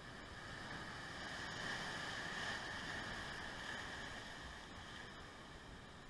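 Atlantic surf breaking over rock ledges: a rushing wash that swells over about two seconds to a peak, then slowly dies away as the water drains off the rocks.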